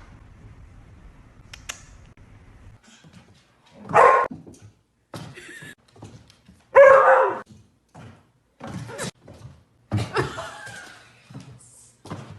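A dog barking in a series of short bursts, the loudest about seven seconds in.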